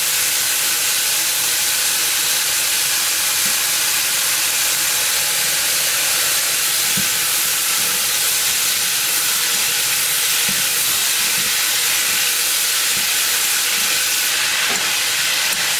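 Bean sprouts and tofu sizzling in hot oil in a nonstick pan over high heat: a loud, steady hiss, with a few soft knocks of the wooden spatula against the pan as they are stir-fried.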